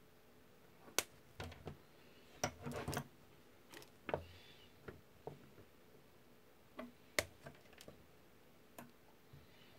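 Irregular sharp clicks and taps of pliers and small parts being handled against a carbon-fibre drone frame, with a brief rustling cluster between two and three seconds in. The sharpest clicks come about a second in and about seven seconds in.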